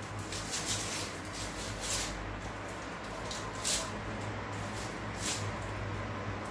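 Dry, papery onion skin crackling and rustling in short irregular bursts as it is peeled off a whole onion by hand, over a steady low hum.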